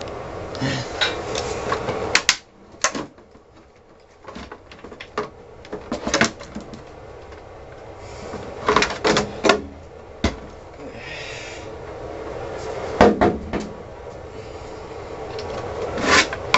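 Knocks, bumps and clatters from handling a disassembled CRT computer monitor and its plastic housing, about eight separate impacts spread out, with a short scrape about two-thirds of the way through.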